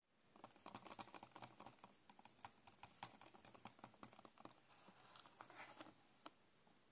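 Fingertips and nails tapping and handling a cardboard Easter egg box: a faint, quick run of light clicks, thickest in the first couple of seconds.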